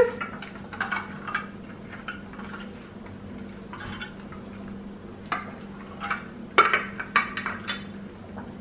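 Small clear plastic cups handled and set down one by one into a glass baking dish of chicken wings: a scatter of light plastic clicks and knocks against the glass, with a bunch near the start and again about five to eight seconds in.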